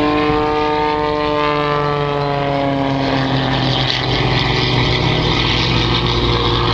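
Propeller aerobatic airplane engine drone. Its pitch falls slowly over the first three seconds, then it settles into a steadier, lower-pitched sound.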